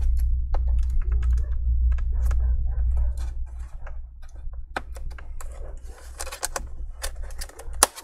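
Metal prying tool working along the seam of an Acer Predator laptop's plastic bottom cover: irregular small clicks, ticks and scrapes as the cover's clips are worked at, with one sharper click near the end.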